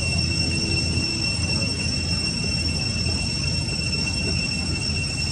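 Steady high-pitched insect drone, one unbroken whining tone with an octave above it, over a low rumble.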